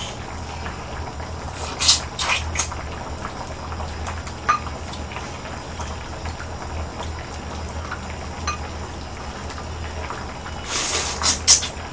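Pork-bone stew simmering in a pot on a portable burner, under loud slurping and sucking as meat is eaten off the bones: a few short slurps about two seconds in and a louder run of them near the end.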